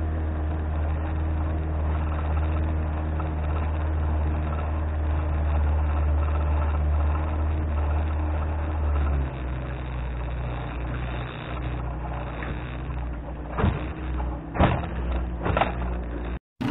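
A 1997 Johnson 25 hp two-stroke outboard motor runs steadily, driving the boat under way. About nine seconds in its note drops and quietens a little. Near the end there are three sharp knocks.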